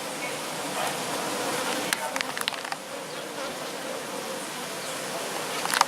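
A mass of honeybees from an opened hive buzzing steadily. A few sharp clicks come about two seconds in and again near the end.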